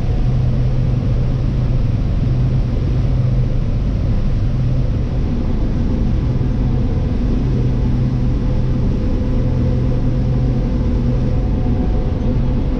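John Deere 4760 tractor's diesel engine running at a steady speed with a constant low hum, heard from inside the cab while it drives the grain cart's unloading auger emptying corn into a wagon.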